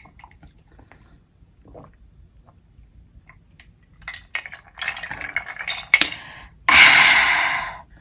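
Cutlery and dishes clinking and clattering, followed by a loud rushing noise lasting about a second that fades out.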